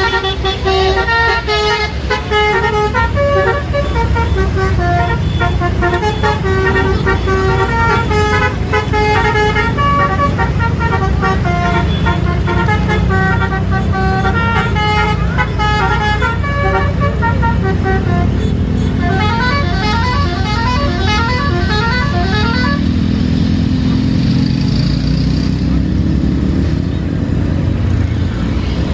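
Bus 'basuri' musical horn playing a tune in held, stepped notes, then about two-thirds through a string of quick rising note runs. A low engine sound runs underneath and rises in pitch near the end.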